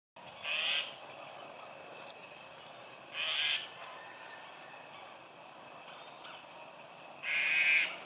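Black-collared starling calling: three loud, harsh calls of about half a second each, spaced roughly three to four seconds apart.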